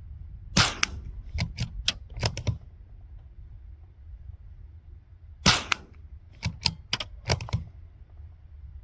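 Two suppressed .22 LR rifle shots, sharp and cracking like a cap gun, about five seconds apart. Each shot is followed within a couple of seconds by a quick run of five or six lighter clicks.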